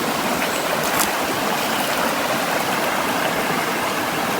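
River water flowing steadily over rocks, an even rushing noise.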